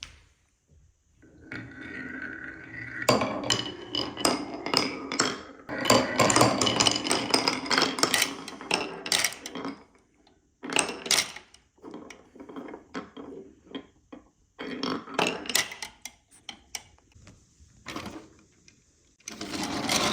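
Glass marbles rolling and clacking down a wooden marble run: spells of quick clicks and rattles with short pauses between them.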